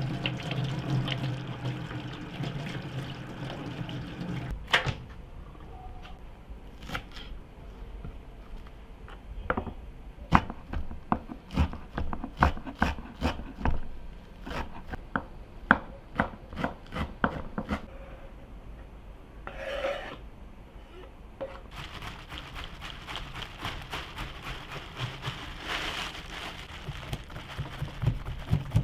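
Tap water running onto a stainless steel sink over a bunch of dill. Then a knife chops the dill on a wooden cutting board in irregular sharp knocks. From about three quarters of the way in, a knife scrapes rapidly along a pike perch inside a plastic bag in the steel sink, scaling it.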